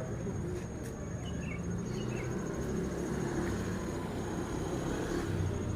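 Outdoor background noise: a steady low rumble with a thin, steady high-pitched whine over it, and a few faint short chirps about a second and a half in.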